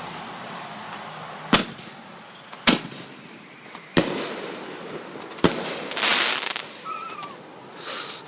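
A consumer multi-shot fireworks cake firing: four sharp bangs a little over a second apart, with a falling whistle between the second and third. Near the end come two bursts of hissing crackle.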